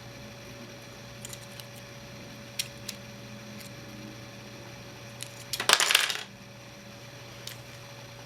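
Light clicks of small hard plastic pieces being handled, then a short, loud clatter as they are dropped together about five and a half seconds in.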